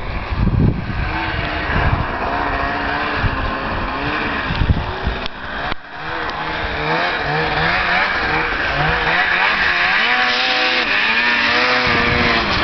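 Snowmobile engine running and revving up and down as it rides across snow, its pitch repeatedly rising and falling. Wind buffets the microphone near the start and near the end.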